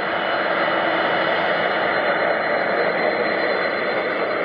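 Jet engines of an Air Canada Boeing 767 taxiing: a steady rushing noise with a thin, high, steady whine over it.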